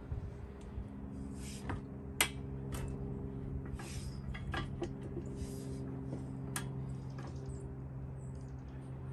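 High-lift farm jack being pumped by its handle, the steel climbing pins ratcheting with sharp metal clicks and clinks at irregular intervals as it lifts the shed's frame, over a steady low hum.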